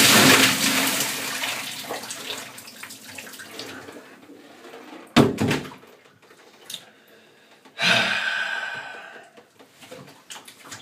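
A bucket of ice water poured over a person's head in a tiled bathroom: a loud splash that fades over about four seconds as the water runs off. A sharp knock follows about five seconds in, and a second, shorter rush of noise about eight seconds in.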